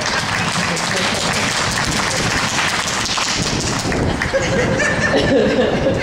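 Audience clapping and laughing, with a few voices showing through in the second half.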